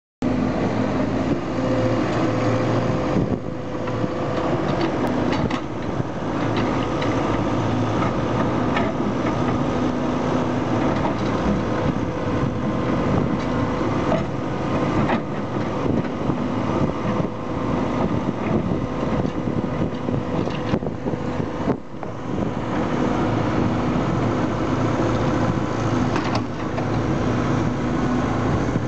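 Diesel engines of a Komatsu backhoe loader and a JCB mini excavator running steadily while they dig and move earth, with occasional sharp clanks.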